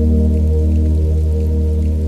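Ambient music: a deep drone chord held steady, with faint rain pattering behind it.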